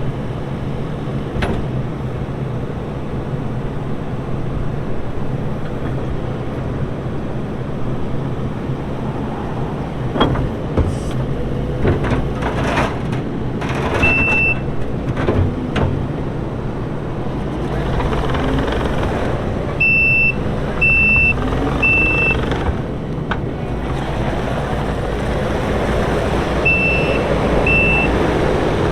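Kubota SVL95-2s compact track loader's diesel engine running steadily while the machine works, with a few sharp clanks partway through. Its backup alarm beeps in short runs of one to three beeps as it reverses.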